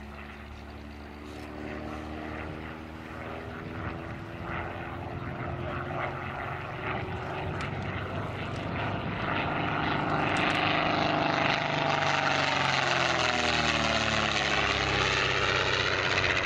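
Single-engine piston propeller aeroplane flying past, its engine drone growing louder as it approaches. About two thirds of the way through, the engine pitch drops as it passes.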